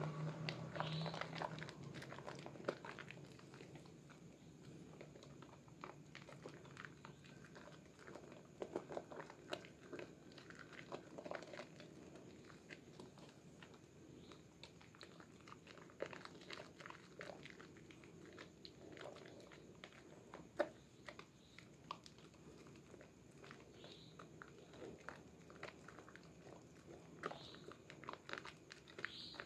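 Faint, irregular wet squishing and crackling of thick soap lather as bare hands squeeze and knead a bar of red bar soap over a basin of foamy water.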